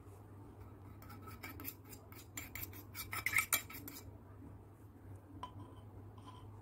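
A small metal spoon scraping and clinking against a tiny brass bowl as its contents are emptied into a miniature aluminium pressure cooker. There are rapid clinks and scrapes, loudest about three seconds in, then a few scattered taps.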